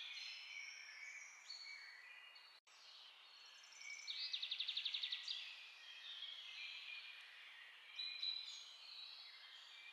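Faint birdsong, several songbirds chirping and warbling over one another, with a fast trill of about a dozen quick notes standing out about four seconds in.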